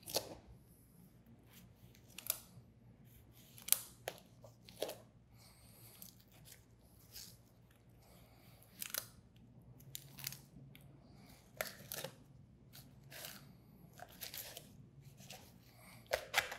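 Knife cutting through a large fish's rib bones while filleting: quiet, irregular crunching and scraping strokes as the blade severs the bones and slides along them.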